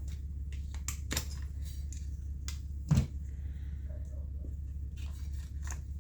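Scattered small clicks and taps as chainsaw parts and hand tools are handled during a teardown, with one louder knock about halfway through, over a steady low hum.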